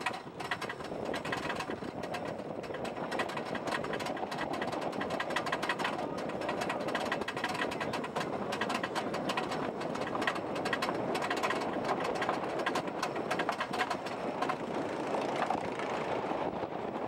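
Wooden roller coaster train being hauled up the chain lift hill: the lift chain clattering and the anti-rollback dogs clicking rapidly and steadily.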